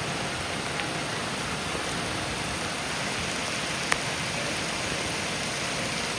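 Steady rush of falling water, like heavy rain, with one sharp click about four seconds in.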